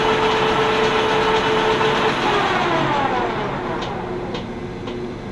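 Metal lathe running with a steady whine, then switched off about two seconds in, its pitch falling as the spindle coasts down. A few light clicks near the end.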